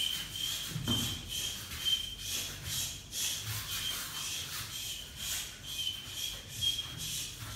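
Wooden fighting staff swung and spun through the air, giving repeated whooshes about two a second, with a few soft thumps from footwork on the mat. A thin, wavering high tone runs underneath.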